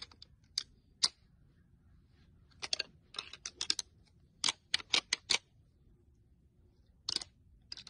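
Scattered sharp clicks and snaps of hunting gear being handled close by, some single and some in quick runs of three or four.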